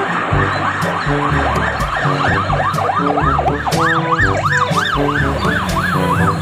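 Toy emergency car's electronic siren sounding a fast rising-and-falling yelp, about three cycles a second, that grows louder about four seconds in.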